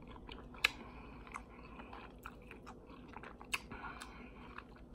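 A person chewing a mouthful of nachos: soft wet mouth sounds with scattered crunchy clicks of tortilla chips, the two sharpest crunches about half a second and three and a half seconds in.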